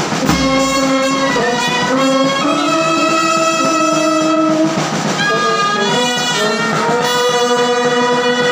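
Brass band of trumpets, baritone horns and sousaphones playing a tune in held notes that step up and down, with a clarinet playing along.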